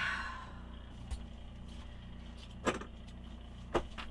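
Compressor fridge running loud with a steady low hum, with three short knocks about 1, 2.7 and 3.8 seconds in. The noise comes from the compressor not sitting level, as the owner works out.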